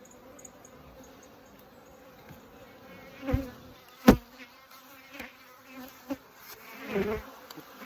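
Honeybees buzzing around an open hive in a steady hum, with a few sudden handling knocks; the sharpest and loudest comes about four seconds in.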